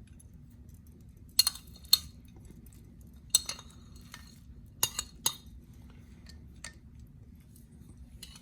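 A metal spoon clinking against a serving dish: about five sharp, separate clinks at irregular intervals, with a few fainter taps between them.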